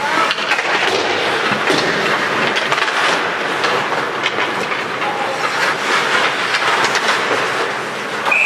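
Ice hockey in play: skates scraping the ice with sticks and puck clacking, a steady rush of noise broken by many sharp knocks.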